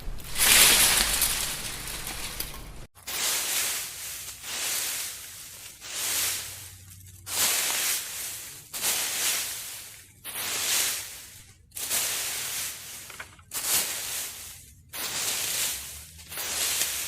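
Dry leaves crunching and rustling in about a dozen separate bursts of a second or so each.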